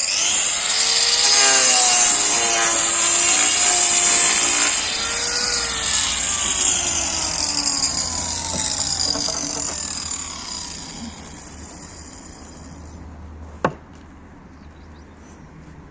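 Angle grinder with a 125 mm wood-cutting disc cutting through a board, its whine dipping and rising as the cut loads the motor. About ten seconds in it winds down, and a single knock follows near the end.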